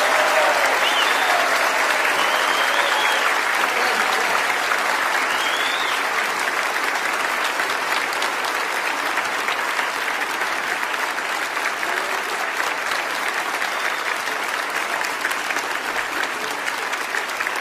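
Large theatre audience applauding steadily after a song ends, with a few high cheers over the clapping in the first several seconds; the applause slowly eases off.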